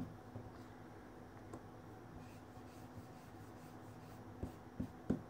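Dauber tip of a Distress stain bottle rubbing along a paper strip, a faint scratchy scrubbing, with a few light taps about a second from the end.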